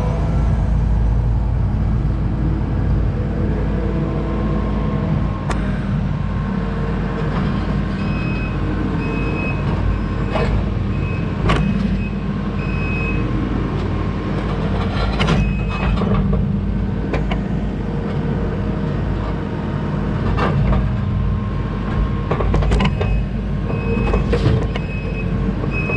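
Kubota SVL90-2 compact track loader's diesel engine running hard while working a tooth bucket, with several sharp clanks as the bucket strikes concrete. Its backup alarm beeps in a few short runs partway through and again near the end.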